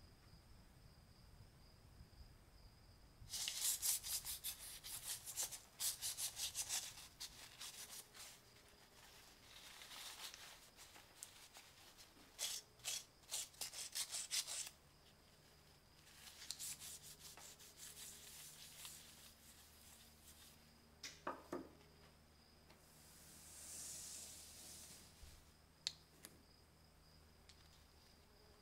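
Gloved hands rubbing and scrubbing the rusty metal tube of an antique lighter during acid rust cleaning. The rubbing comes in several separate bursts of a few seconds each, over a faint steady high-pitched tone.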